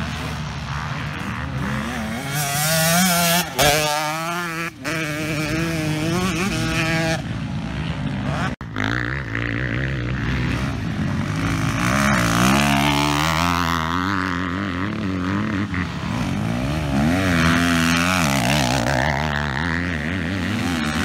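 Motocross dirt bikes ridden hard through a corner one after another, their engines revving up and down in pitch as the riders back off and accelerate out, with a sharp break about eight and a half seconds in.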